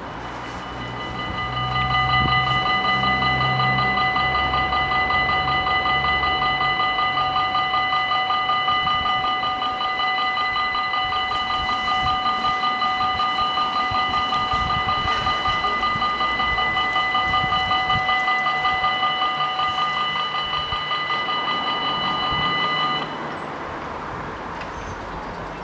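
Level-crossing warning bells ringing with fast, even strokes to warn that a train is coming. They fall silent suddenly about 23 seconds in, once the barriers are down.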